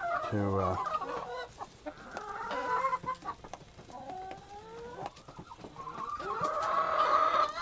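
A flock of hens, Cinnamon Queen layers, clucking and squawking as they squabble over feed and table scraps, with a longer drawn-out call near the end.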